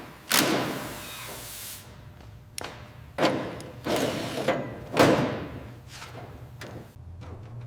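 A series of about six heavy knocks and thuds at uneven intervals, each trailing off in a short rushing noise. The loudest comes about five seconds in.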